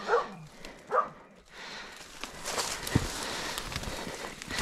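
A hunting dog gives three short yelps in the first second. Then footsteps rustle through dry leaf litter and brushy undergrowth, with a few sharp cracks and thuds.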